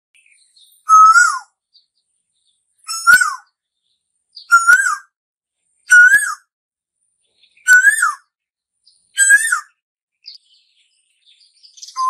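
Asian koel calling: six loud, whistled calls about a second and a half apart, each a short note that rises and then drops away sharply.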